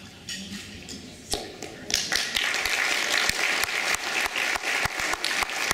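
Audience applauding, breaking out about two seconds in and going on steadily.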